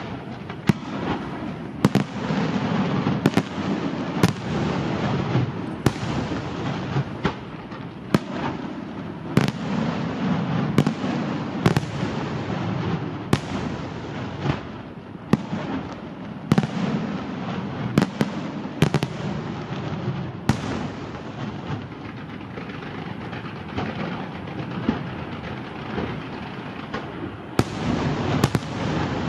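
Aerial fireworks display: sharp bangs of bursting shells about once a second over a continuous dense rumble of further bursts.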